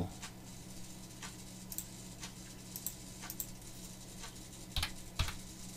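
Scattered faint clicks of a computer mouse, then two louder keyboard keystrokes near the end as a dimension value is typed in. A low steady hum runs under them.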